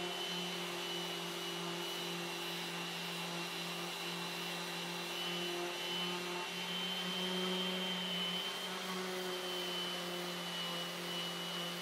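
Random orbital sander with a dust-extraction hose running steadily, its 120-grit pad rough-sanding the face of a wooden table leaf. A constant hum with a high whine that wavers slightly about halfway through as the pressure on the pad changes.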